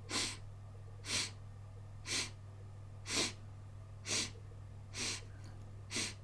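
Short, sharp sniffs in through the nose, about one a second, seven in a row: a nasal breathing exercise of quick inhales with the nostrils flared, meant to open up the nose.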